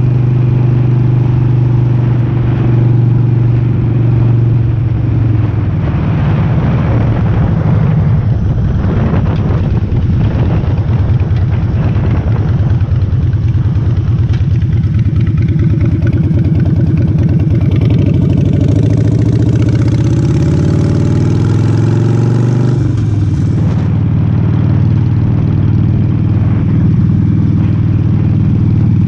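Harley-Davidson V-twin with Vance & Hines short pipes running under way, heard from a helmet-mounted camera. The engine note changes about six seconds in; later it accelerates, its pitch rising for a few seconds, then drops off abruptly.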